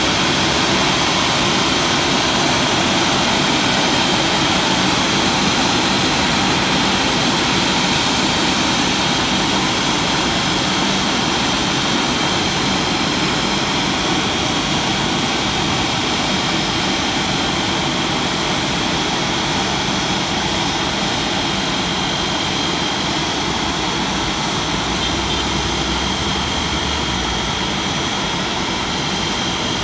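Automatic rollover car wash gantry running over a car: a loud, steady machine noise with a thin high whine held throughout.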